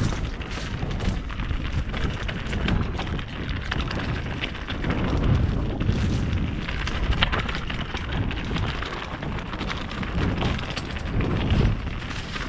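Mountain bike descending a rough, gravelly trail at speed: a constant rumble of wind buffeting the camera microphone, with a continual clatter and rattle of tyres, chain and frame over stones.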